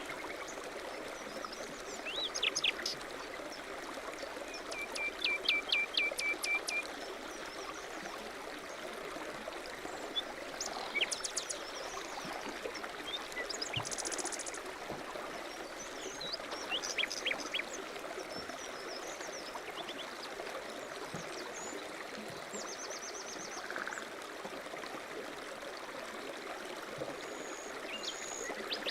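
A stream running steadily, with small birds chirping over it at intervals in short series of quick notes and trills. One brisk trill comes about five seconds in.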